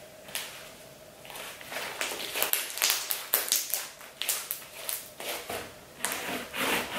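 Slime loaded with gold mica powder and stiffened with activator, stretched, folded and squeezed by hand: a quick, irregular run of sticky clicks and pops starting about a second and a half in. Near the end it is pressed down on the table.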